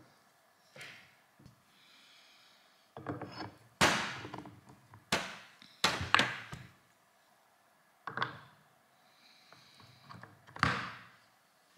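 Steel parts of an engine crane's hydraulic ram clunking together as a bracket and pin are fitted onto the ram's top end by hand: several sharp knocks at irregular intervals, with quiet gaps between.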